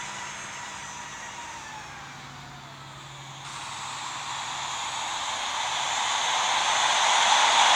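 Jet engines of a Southwest Airlines Boeing 737 on landing approach: a steady hiss with a whine that eases to its quietest about three seconds in, then grows steadily louder as the plane comes closer.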